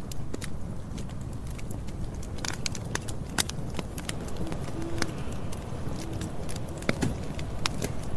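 Campfire burning: wood crackling with irregular sharp pops over a steady low rumble of the flames.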